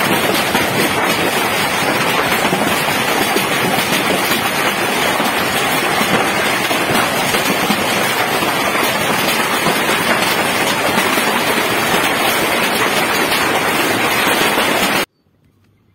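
Heavy hailstorm: hailstones and rain pelting down hard on the roof overhead and the yard, a dense, steady clatter of countless impacts. It cuts off abruptly near the end.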